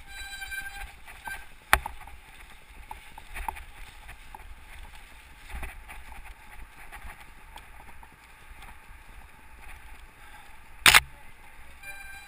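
Mountain bike riding over a dirt and leaf-covered trail, heard from a camera on the rider: a steady rumble of wind and tyres with light rattles and clacks from the bike. There is a sharp knock just under two seconds in and a louder, sharper crack about a second before the end.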